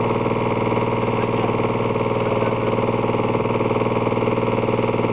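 Excavator engine idling steadily close by, an even, unchanging drone.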